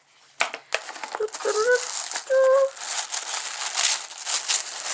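Black wrapping crinkling and rustling as a sample box is pulled open by hand, with many small clicks and scrapes. Two short vocal sounds come about one and a half and two and a half seconds in.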